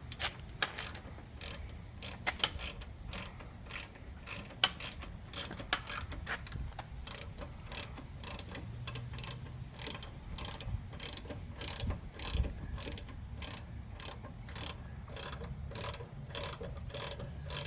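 Hand socket ratchet clicking as a crash-bar bolt is tightened on a motorcycle, one stroke after another. The clicks come irregularly at first, then settle into a steady run of about three a second.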